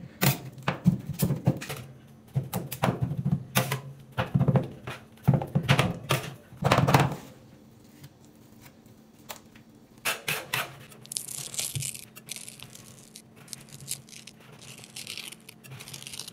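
Metal spatulas chopping and scraping on a steel rolled-ice-cream cold plate: a quick series of sharp clacks for the first several seconds, then a few quieter knocks, then long scratchy scrapes from about eleven seconds in as the frozen mix is spread thin and scraped up into rolls.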